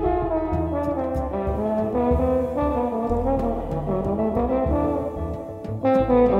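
Trombone playing a melody line with a live jazz band behind it: double bass, drums with cymbal hits, guitar and keys.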